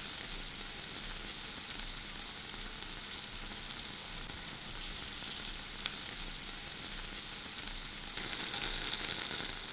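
Pork sausages sizzling in a cast-iron skillet, the splash of white wine in the pan juices bubbling as it reduces to a glaze. A steady sizzle with one light click past the middle, a little louder near the end.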